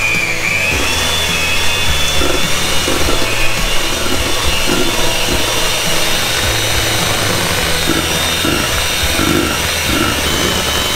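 Electric hand mixer running at a steady speed, its beaters churning a thick cream-cheese filling in a stainless steel bowl, with a steady high motor whine.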